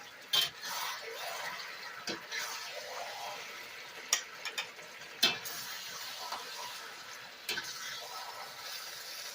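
Metal spatula scraping and clinking in a wok as stir-fry is dished out, about five sharp knocks spread through, over a steady sizzling hiss from the hot wok.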